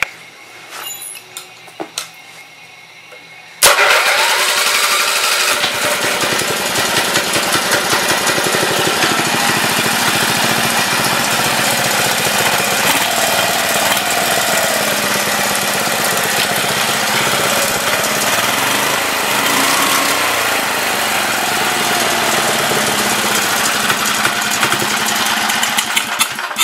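An 11 hp Briggs & Stratton I/C cast-iron-bore horizontal-shaft single-cylinder engine, choked, starts abruptly about four seconds in after a few handling clicks. It then runs loudly and steadily, its speed wavering slightly, since it still needs carburettor tuning. It stops just before the end.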